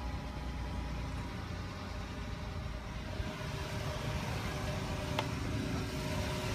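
2015 Dodge Durango Limited's engine idling in Park, heard from inside the cabin as a steady low hum, with a faint click about five seconds in.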